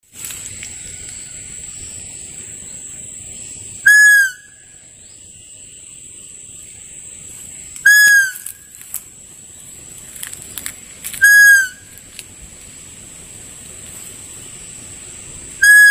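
Bamboo muntjac (kijang) caller in the fawn-voice version being blown: four short, loud, high bleats about four seconds apart, each bending down in pitch at its end. A steady high-pitched tone runs underneath.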